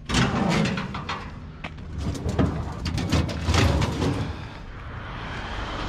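Irregular knocks and rattles of a discarded Rover lawnmower being handled, with a steadier rustling noise toward the end.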